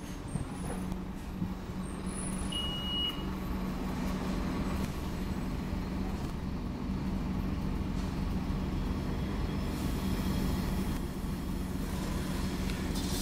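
Scania OmniCity N230UD double-decker bus under way, heard inside the upper deck: the steady drone of its rear-mounted nine-litre five-cylinder diesel with road noise. A brief high beep sounds about two and a half seconds in, and the road hiss grows from about ten seconds in.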